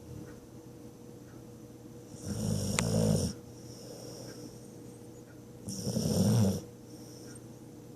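A sleeping dog snoring: two loud snores about three and a half seconds apart, each lasting about a second, with quieter breathing in between.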